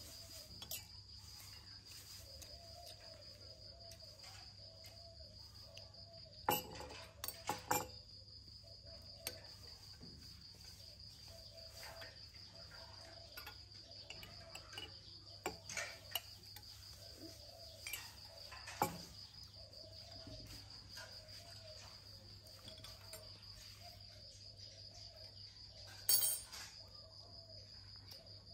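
A steady, high-pitched insect trill throughout. Over it come occasional sharp clinks and taps of a metal spoon on the table and a mug, a few about a quarter of the way in and a louder cluster near the end.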